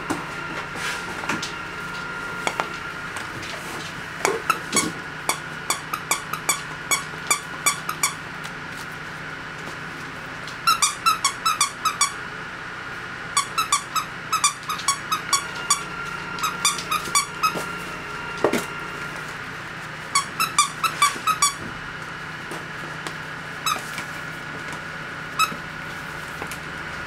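Squeaky dog toy being squeezed, giving short, sharp squeaks in quick runs of several at a time with pauses between the runs. A faint steady high hum lies underneath.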